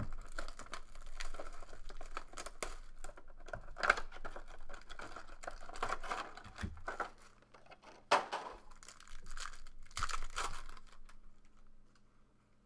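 Plastic wrapping being torn and crinkled off a sealed 2012-13 Panini Elite basketball card box, then the box opened and its foil packs handled. A dense crackle with a few sharp snaps, the loudest about 4 and 8 seconds in, quieter near the end.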